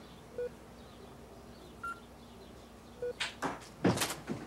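Bedside medical monitor beeping, alternating a low and a higher tone about every second and a half, three beeps in all. Near the end come a few short rustling sounds, the loudest about four seconds in.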